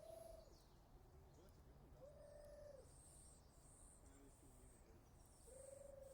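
Three soft, drawn-out hooting calls, each just under a second long and a couple of seconds apart, with faint high chirping repeating between them.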